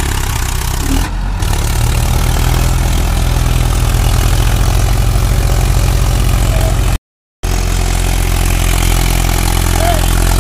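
Diesel engines of a Mahindra Arjun Ultra 555 tractor and a JCB 3DX backhoe loader running under heavy load as the tractor hauls a loaded trailer through soft mud. The sound cuts out completely for a split second about seven seconds in.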